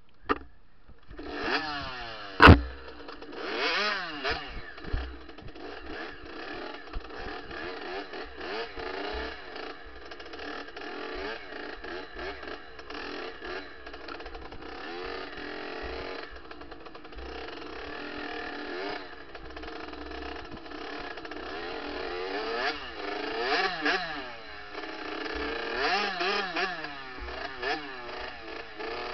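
Kawasaki KX65 65cc two-stroke dirt bike engine starts up about a second in, then revs up and down repeatedly as the bike is ridden. A single loud sharp knock comes just after the engine sets in, with smaller knocks and clatter later.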